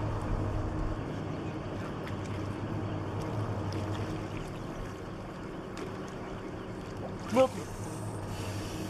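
A steady low hum under an even noisy wash, with one short cry that rises and falls about seven seconds in.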